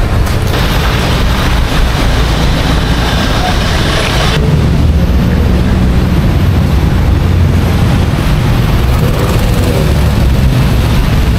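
Road traffic noise: a loud, steady low rumble of passing vehicles, with a hissier passing sound that drops away about four seconds in.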